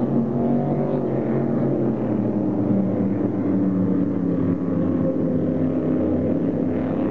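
Offshore racing powerboats passing at full speed, a Fountain race boat among them. Their engines make a loud, steady drone with several pitches that shift slightly as the boats go by.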